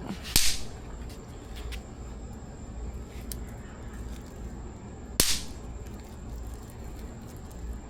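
Two snap pops (throw-down snappers) cracking as they are thrown against the ground, one about half a second in and the other about five seconds in.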